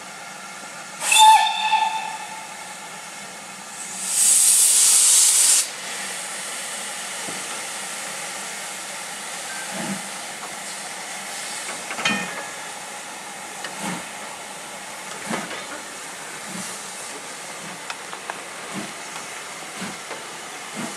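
Steam locomotive starting a train: a short blast on its whistle, then a loud burst of steam hiss from the open cylinder drain cocks, followed by slow exhaust chuffs that gradually quicken as it gets under way.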